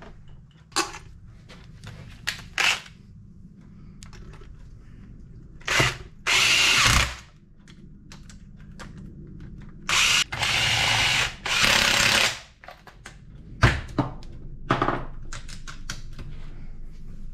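Handheld power driver spinning bolts in short runs, about one second each: once about six seconds in, then three back to back around ten to twelve seconds in, with clicks and knocks of parts and tool between. This is the crankcase bolts being run down as the engine cases are closed.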